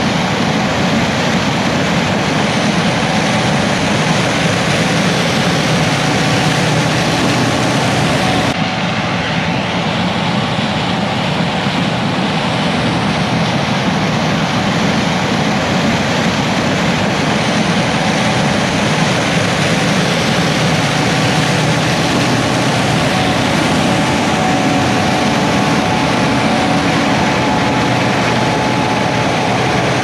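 Steady, even noise of heavy farm machinery running: a combine harvesting corn, with a tractor and grain cart running alongside. The sound changes abruptly about eight seconds in, then carries on steadily.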